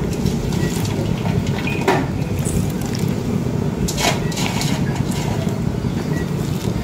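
Steady low rumbling background noise, with two brief rustles or clicks about two and four seconds in.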